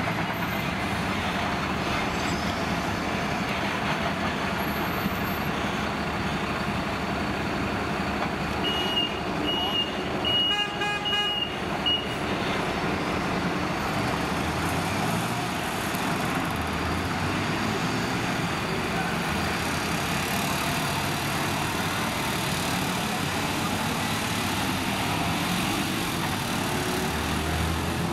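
Fire engines' diesel engines running steadily as the appliances move off and drive past. Around ten seconds in a horn sounds briefly, together with a row of short high beeps.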